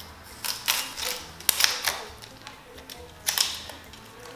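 Protective plastic film being peeled off a graphics card, crackling in a few short bursts.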